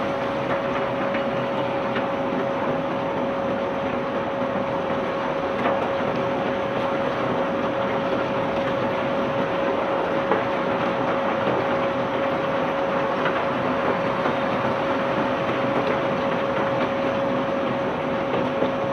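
Cobblestone barge's unloading machinery running steadily: an even mechanical clatter with a constant whine held at one pitch, and a few faint clicks.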